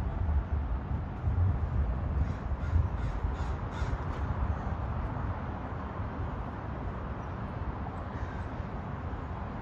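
A bird calling: a quick run of about five short calls, between two and four seconds in, over a steady low rumble.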